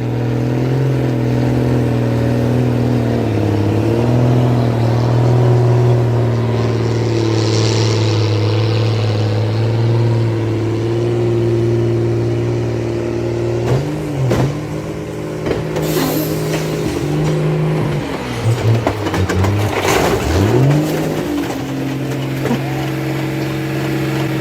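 Tractor and truck engines running hard under load. About halfway through, the engine note drops and surges again and again, with a few knocks, then settles back to a steady pull.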